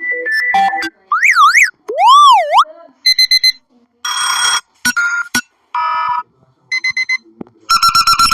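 A run of short electronic alarm-clock tones, about nine in a row, each cut off after half a second to a second. They include beeps, a siren-like wail that swoops up and down, rapid pulsing beeps and steady held tones.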